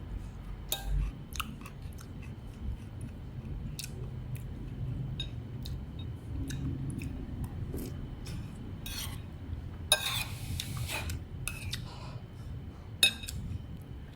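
Scattered clicks and clinks of utensils against dishes, with the loudest clicks about ten and thirteen seconds in, over a steady low hum.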